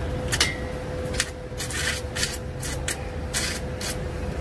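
Metalwork on a steel tubular post with a corded handheld tool: about eight short, irregular bursts of harsh hissing noise, some a quarter-second long, over a steady faint hum.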